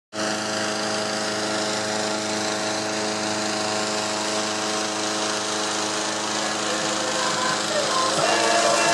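Small engine running steadily at a constant speed, with a rushing whir over it.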